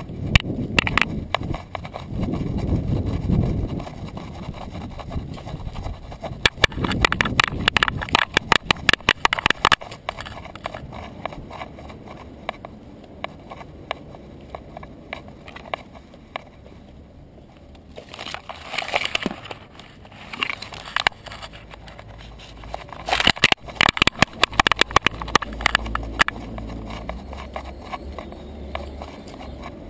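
Quick runs of clicking and rattling from a small white terrier trotting on a concrete sidewalk, picked up by a camera strapped to its back. The runs last a few seconds each, with quieter stretches between.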